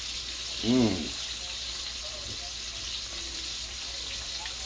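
Oil sizzling steadily in a skillet as food fries. About a second in, a man's short hum, rising and falling in pitch, is the loudest sound.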